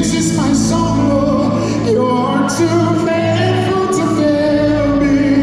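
Live gospel worship song: a lead singer with backing vocalists over a band, carried through a concert PA, with sustained sung lines over a steady bass.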